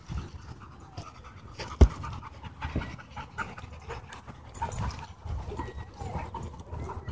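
Dogs panting as they run and play, with a single sharp thump about two seconds in.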